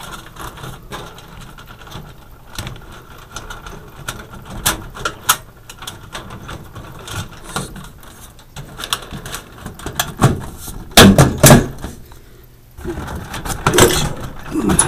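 Sheet-metal fluorescent light fixture being handled: wires pushed into the channel and the white metal ballast cover worked into place, giving scattered clicks, scrapes and rattles, with a few louder clunks about eleven seconds in and again near the end.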